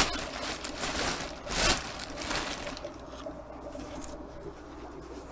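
Rustling and handling noises, several short bursts in the first two and a half seconds, then quieter, with a faint steady hum underneath.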